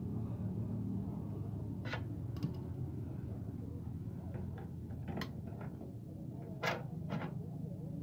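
Scattered sharp clicks and light knocks of pliers and fingers working the wire connectors off a microwave oven's high-voltage capacitor terminals, over a steady low background hum.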